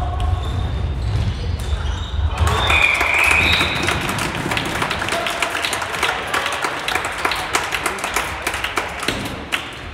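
Players shouting and clapping rapidly in an echoing sports hall, starting about two and a half seconds in, as a floorball goal is celebrated.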